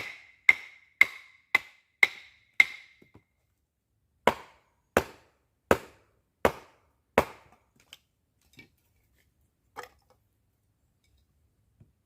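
Repeated sharp blows of a hand tool. Six quick strikes with a ringing note come about two a second, then after a short pause five duller strikes follow at a slightly slower pace.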